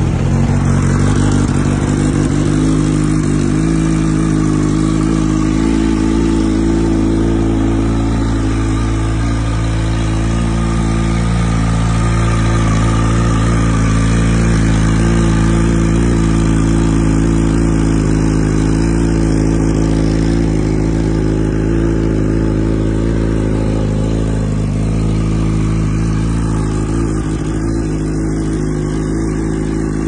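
Yamaha YZF inline-four sportbike with an aftermarket Coffman's exhaust idling steadily and loudly, its pitch holding almost level throughout.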